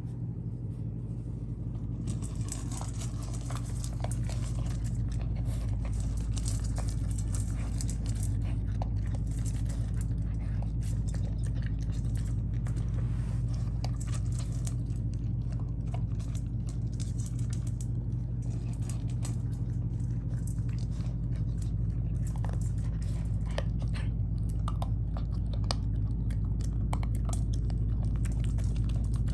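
An eight-week-old Rottweiler puppy eating dry kibble from a stainless steel bowl: rapid, irregular crunching and clicking of kibble against the metal, starting about two seconds in, over a steady low hum.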